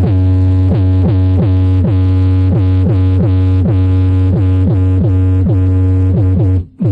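Electronic music with a constant deep bass drone and falling synth sweeps repeating about twice a second, cutting out briefly near the end.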